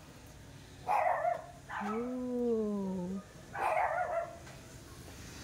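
A dog barking: one bark about a second in, then a long drawn-out howl that rises and falls in pitch, then another bark.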